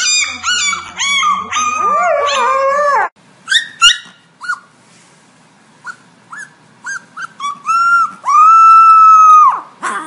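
Husky-type puppy and adult dog howling together in wavering, overlapping howls. After about three seconds, a small black puppy gives a string of short yips and then one long, high howl near the end.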